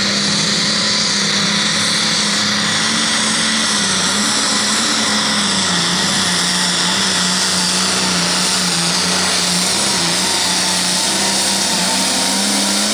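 Turbocharged diesel engine of an International pulling tractor running flat out under load as it drags the weight sled. The steady engine note carries a strong high whine above it.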